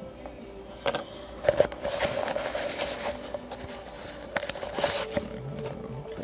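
Paper rustling and crinkling as a padded paper cushion mailer is handled, with several sharp crackles.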